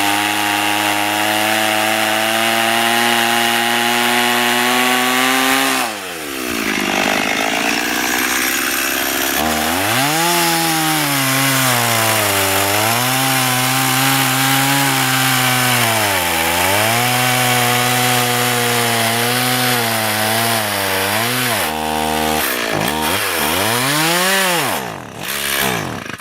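Stihl MS 180 (018) two-stroke chainsaw running at full throttle while cutting a big hardwood trunk. About six seconds in its pitch drops sharply, then it revs up and sags again several times, and it winds down near the end.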